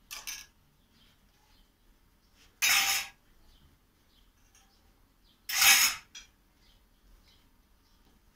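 Metal spoon and small metal bowl being handled while a liquid topping is spooned over pastry in a round baking tray: three short scraping noises about three seconds apart, the last the loudest. Faint bird chirps repeat in the background.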